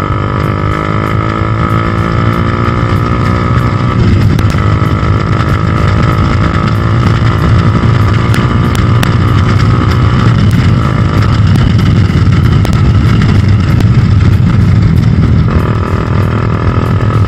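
Bajaj Dominar 400's single-cylinder engine accelerating hard, its pitch rising steadily, then dropping as it shifts up about four seconds in. It then pulls on at speed under heavy wind noise, with further shifts around ten and fifteen seconds in.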